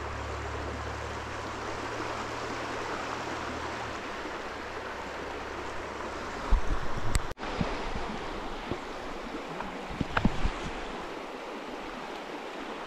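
Steady rush of a flowing trout stream around a wading angler. There is a low rumble in the first few seconds, and a few low thumps about halfway through and again later.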